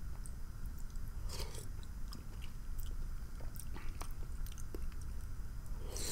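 A person eating close to the microphone, most likely spooning Zuppa Toscana soup: chewing with many small wet mouth clicks, and two short louder noisy sounds, about a second and a half in and near the end.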